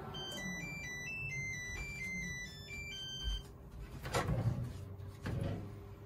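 Microwave oven's end-of-cycle chime: a short melody of electronic beep tones for about three seconds, signalling that heating is done. Then the door is opened, with a clunk about four seconds in and a second knock a little over a second later.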